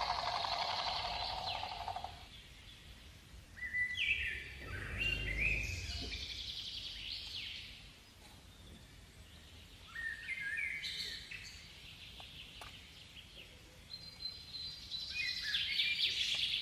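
Birds chirping in short clusters of quick, falling calls, three times over. A steady buzz fades out about two seconds in, and a brief low rumble comes near the fifth second.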